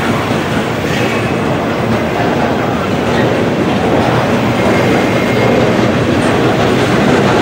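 Freight train boxcars rolling past close by, their steel wheels running steadily over the rails. The sound grows slightly louder toward the end.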